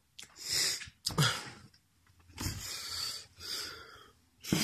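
A person breathing noisily close to the microphone: about four breathy puffs with short gaps between them.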